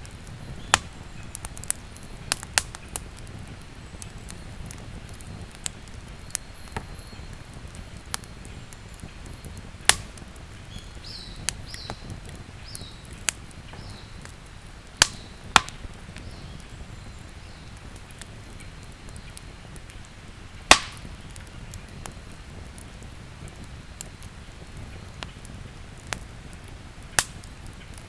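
Wood campfire burning, with a low steady rumble and sharp irregular crackles and pops, a few of them loud. A few faint high chirps come around the middle.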